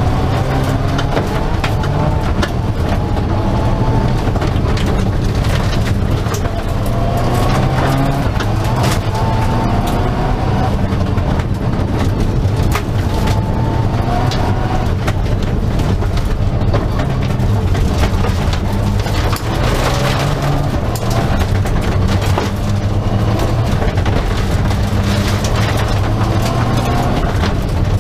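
Mitsubishi Lancer Evo rally car's turbocharged four-cylinder engine at full throttle, heard from inside the cabin, its pitch rising again and again as it revs up through the gears. Gravel rattles and pings against the underside throughout.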